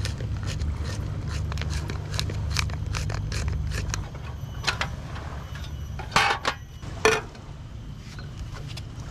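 Wooden pepper grinder being twisted, a quick run of dry clicks and crunches as it grinds peppercorns, over a low rumble. The clicking thins out after about four seconds, and two louder short clatters come about six and seven seconds in.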